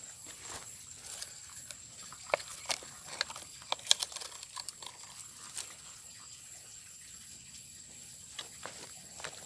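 Footsteps and rustling of someone moving through a rice paddy, with sharp clicks and snaps bunched together a few seconds in, over a steady high-pitched whine.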